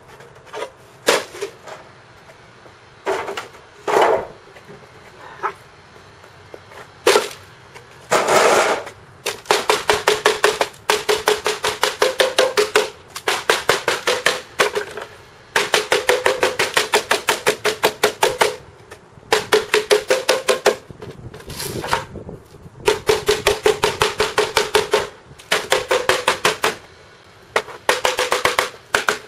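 Hammer blows on a bent aluminum piece against a metal welding table, straightening it flat. A few separate strikes at first, then fast runs of rapid blows, several a second, each run lasting a second or two with short pauses between, every blow ringing.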